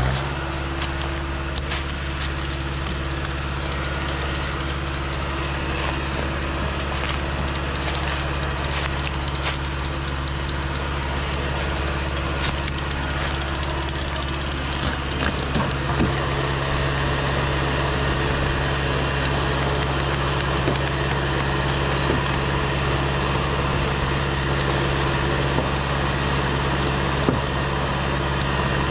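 LKT forestry skidder's diesel engine running steadily at an even speed, with faint scattered clicks and rattles.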